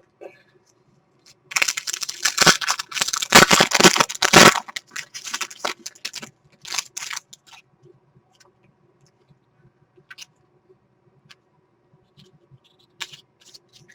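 A trading-card pack wrapper being torn open and crinkled for about three seconds, followed by scattered soft clicks and flicks of cards being handled.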